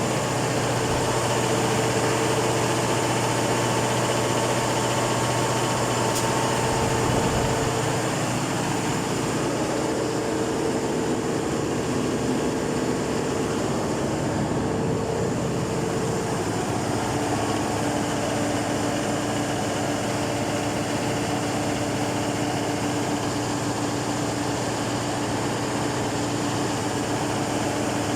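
Cummins KTA50 16-cylinder turbocharged diesel engine running steadily on a test run after a general overhaul. Its steady drone changes about two-thirds of the way through, settling onto a lower tone.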